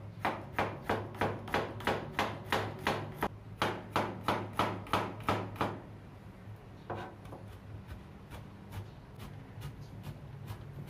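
Kitchen knife chopping garlic cloves on a cutting board, in even strokes about three a second for most of the first six seconds, then softer, scattered taps.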